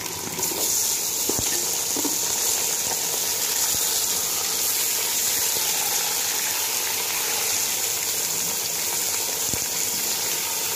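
Raw chicken pieces sizzling in hot oil with fried onions in a metal pot: a steady hiss that swells as the chicken goes in. A few knocks of the stirring spoon against the pot.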